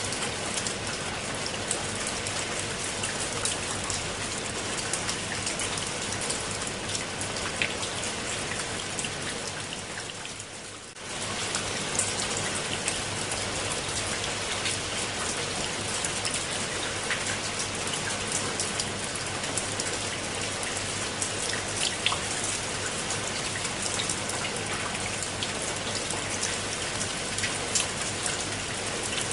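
Steady rain falling on leaves and wet steps, with individual drops ticking close by. It fades briefly about ten seconds in, then comes back suddenly.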